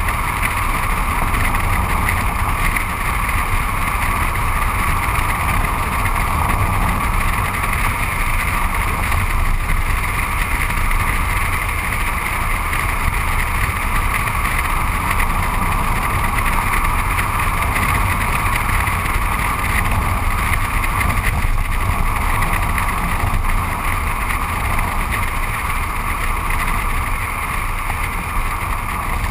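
Steady rush of wind and tyre noise heard from an action camera mounted on the outside of a moving car, beside the front wheel on a damp road: a loud, unbroken roar and hiss with a low rumble underneath.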